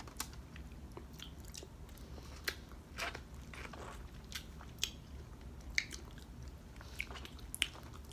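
Mouth sounds of people eating orange wedges: scattered short clicks and smacks as they bite and suck the flesh off the peel.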